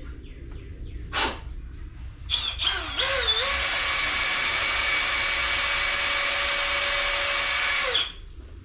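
Electric drill: a brief blip about a second in, then it spins up with a wavering whine and runs steadily for about five seconds before stopping. It is drilling out a stripped head-bolt hole in a Northstar engine block to take a thread repair insert.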